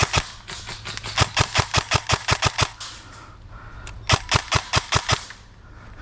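Airsoft guns firing in rapid strings of sharp shots, about six or seven a second, in two main volleys with a pause of about a second between them.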